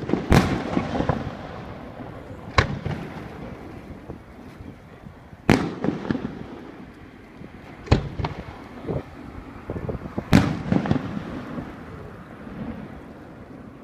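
Aerial firework shells bursting overhead one after another: about five sharp bangs, roughly every two to three seconds, each followed by a rolling rumble of echo and crackling, with a few smaller pops in between.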